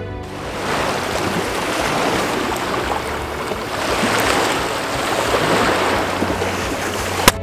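Small lake waves lapping and washing over a pebble and stone shore, a steady wash that swells and eases from moment to moment. A single sharp click comes just before the end.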